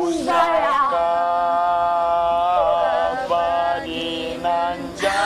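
A single voice singing long, chant-like held notes with a slight waver, breaking briefly and changing pitch about three seconds in.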